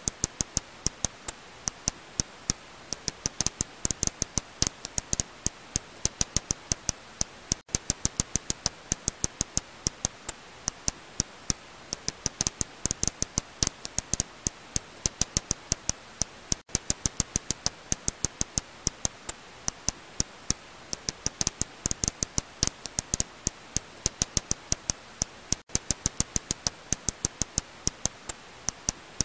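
Serotine bat echolocation calls made audible, heard as a fast, uneven train of sharp dry clicks, several a second, over a steady hiss. Brief dropouts come about every nine seconds.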